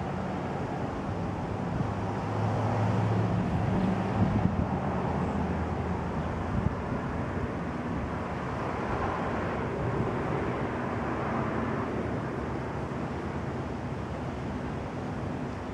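Steady outdoor background of wind and distant traffic, with a passing vehicle's low engine hum rising and fading over the first few seconds.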